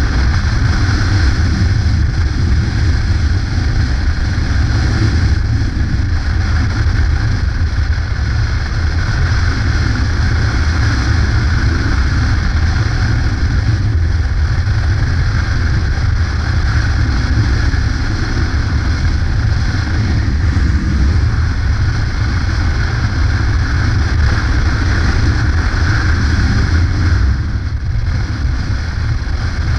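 Yamaha Ténéré adventure motorcycle riding at steady cruising speed: a steady low engine rumble mixed with wind rushing over the microphone, dipping briefly in loudness near the end.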